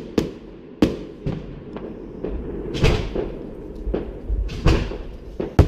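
Fireworks bursting: about six sharp bangs at irregular intervals, with a low rumble between them.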